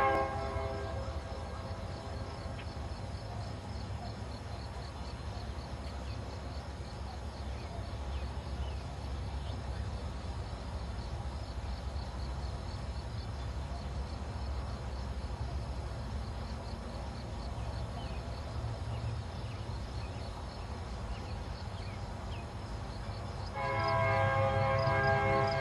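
Diesel locomotive air horn of an approaching train: a blast trails off at the very start, then comes a long low rumble, and about two seconds before the end the horn sounds again as one steady chord of several tones.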